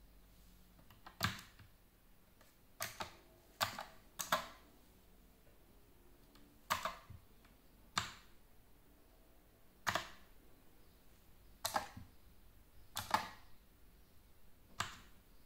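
Mechanical keyboard-style key switches on a SOAIY SH39 soundbar being pressed one at a time: about ten sharp clicks spaced a second or two apart, some heard as a double click.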